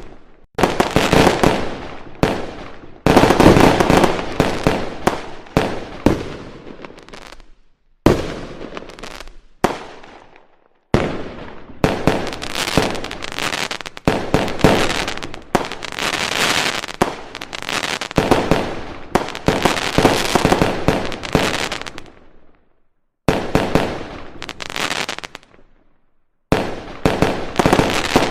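Fireworks display: a rapid, overlapping run of bangs and crackling from shells and comets bursting. The sound breaks off abruptly into silence a few times before picking up again.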